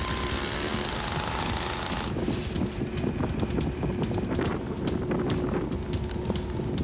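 Gas-powered ice auger engine running as it drills through lake ice, its pitch shifting slightly, stopping abruptly about two seconds in. Then a run of sharp knocks and scrapes as ice chunks and slush are cleared from the fresh hole.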